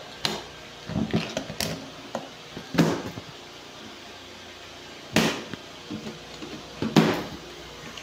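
Snap-off utility knife cutting through the packing tape and strap of a cardboard carton: a run of short scraping cuts every second or two, the loudest about three, five and seven seconds in.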